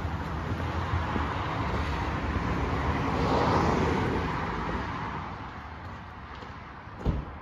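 A car passing on the street: its tyre and engine noise swells a few seconds in, then fades away. There is a single knock near the end.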